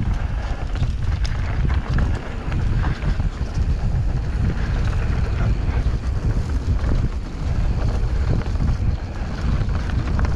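Mountain bike rolling fast down a dry dirt singletrack: a steady low rumble from the tyres and bike, with small clicks and rattles over the bumps, under heavy wind on the microphone.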